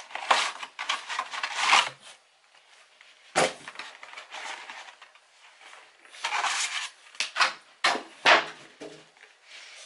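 Cardboard packaging being handled: a scraping, rustling slide as the inner box comes out of its sleeve, then scattered rustles and several sharp knocks and taps, bunched together near the end.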